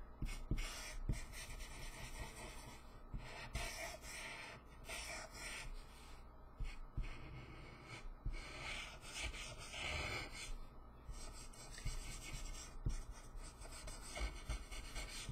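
Copic alcohol marker's chisel nib rubbing over paper: a soft, scratchy rasp in repeated strokes with short pauses between them and the odd light tap.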